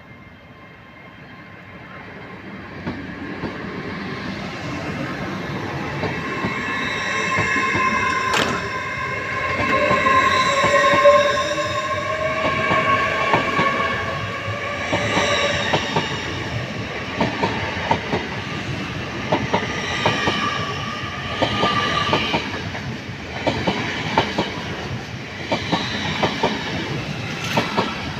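LNER Azuma high-speed train pulling away and accelerating past, its traction motors whining, one tone rising in pitch. Its wheels click over the track, the clicks coming thicker in the second half, and the sound builds to loud over the first ten seconds.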